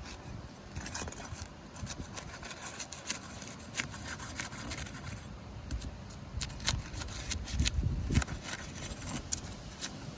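Steel flat bar prying and scraping under 3-tab asphalt shingles, with irregular clicks and scrapes as the sealed shingles are forced apart and tear at the edges.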